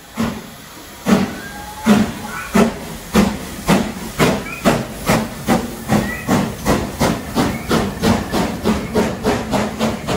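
GWR Castle-class 4-6-0 steam locomotive 5043 Earl of Mount Edgcumbe pulling away, its exhaust barking in sharp chuffs. The chuffs quicken from a little over one a second to about three a second as it gathers speed.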